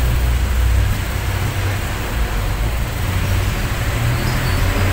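Steady low mechanical hum over an even hiss of background noise, with no distinct clicks or events.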